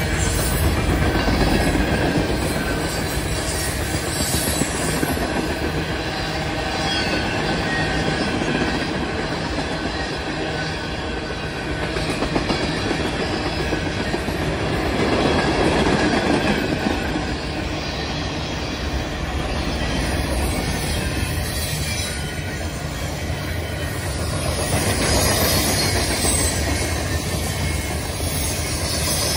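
Mixed freight train cars rolling past at speed: a continuous rumble and rattle of steel wheels on the rails that swells and eases every few seconds as the cars go by.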